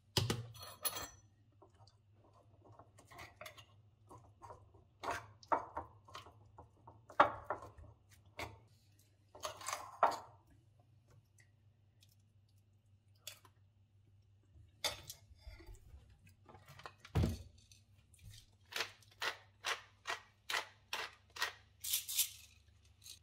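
Cutlery scraping and clinking on ceramic: a knife spreading tuna mayonnaise on bread on a plate, and a spoon scraping out a ceramic bowl, ending in a run of quick, regular scraping strokes.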